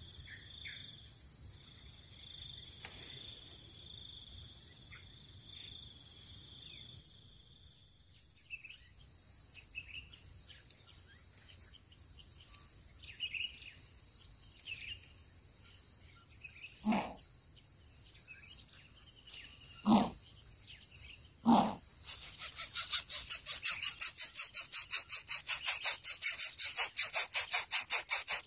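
Steady high-pitched insect trill, typical of crickets, with faint short bird chirps. Three sharp knocks come about two-thirds of the way in, then near the end a loud rapid pulsing starts, about three pulses a second.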